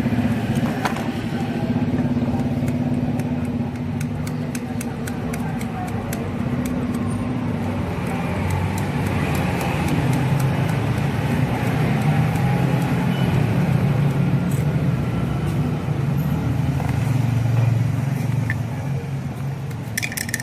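A motor vehicle engine running steadily, its low pitch wandering up and down, with scattered small clicks and a brief cluster of sharp clicks near the end.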